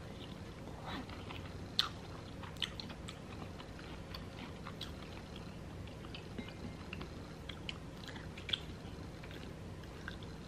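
A person chewing food, with soft, irregular mouth clicks and smacks scattered throughout over a faint steady hum.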